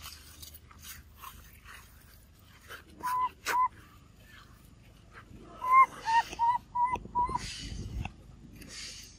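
Baby macaque giving short, high squeaking calls: two about three seconds in, then a quick run of five a couple of seconds later, with breathy wheezing sounds between and after them.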